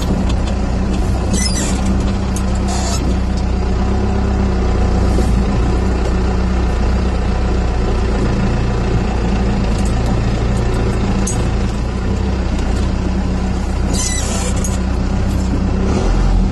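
4BT Cummins four-cylinder turbo-diesel in a Ford F-150 running steadily at low speed under light load, heard from inside the cab. A few short hissing noises sound over it, about a second and a half in and again near the end.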